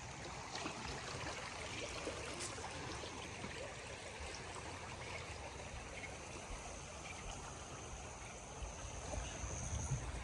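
Flooded Suwannee River water flowing steadily.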